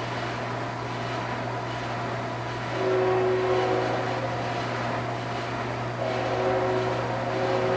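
Distant multi-chime locomotive horn blowing two long blasts, about three seconds in and again near the end, over a steady low hum: a train approaching the crossing.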